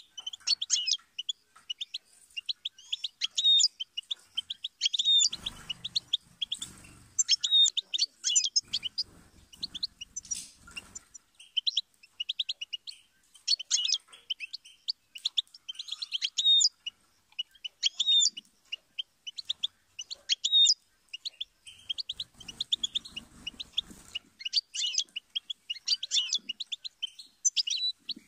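European goldfinch singing: a fast, continuous twittering of short, high chirps and trills. Faint low rustling comes in a few times.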